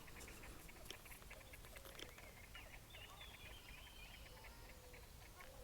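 Near silence with faint, thin bird calls in the distance.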